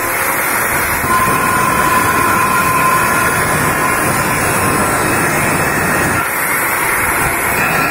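Electric angle grinder with a small cut-off disc cutting an oblong slot into a metal flat bar: the motor runs continuously and the disc grinds through the metal. The cut eases briefly at the start and again about six seconds in as the disc is lifted.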